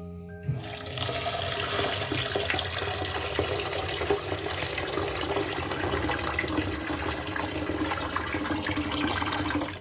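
A tap running water into a pot of rice as the rice is rinsed until the water runs clear. The water starts about a second in, runs steadily, and cuts off near the end.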